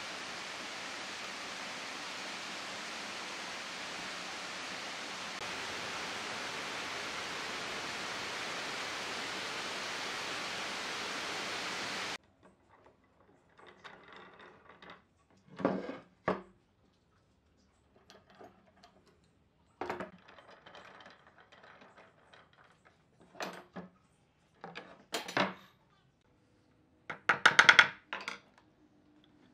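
A steady hiss that cuts off abruptly about twelve seconds in. After it come scattered knocks and clunks of metal pipe clamps and pine boards being handled on a workbench. Near the end a quick run of hammer blows drives a nail into a pine board, the loudest sound.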